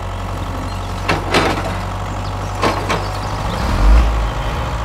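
Miniature model tractor running: a steady low motor hum, with a few short scraping knocks a little over a second in and again near three seconds, and a brief low surge near four seconds.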